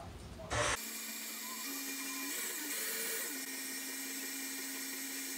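Electric stand mixer switched on about a second in and running at speed setting 6, beating an egg into cake batter. Its motor hum holds steady, stepping up and down in pitch a few times.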